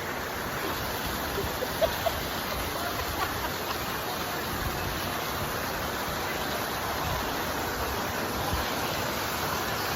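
Waterfall pouring close by: a steady, even rush of falling water, with a brief knock about two seconds in.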